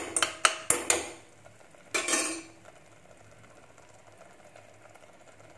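A steel ladle stirring onion paste, clinking and scraping against the inside of a stainless steel pressure cooker. There are several quick strokes in the first second and one more about two seconds in.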